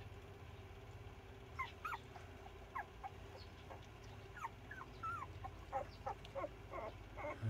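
Young puppies squeaking and whimpering while they nurse: short, high, thin squeaks, scattered and faint, starting about a second and a half in.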